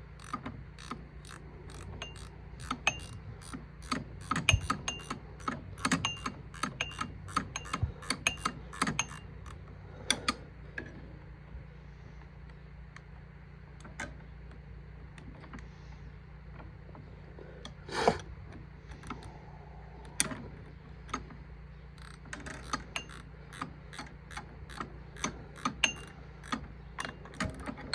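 Ratcheting gear wrench clicking in quick runs as the nut on the bill hook spring of a John Deere 14T knotter is tightened, setting the spring pressure that keeps the bill hook wheel in its track. A quieter pause in the middle is broken by one louder metal knock.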